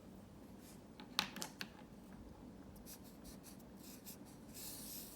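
Pen writing on paper: a few sharp taps about a second in, light scratchy strokes, and a longer scratching stroke near the end.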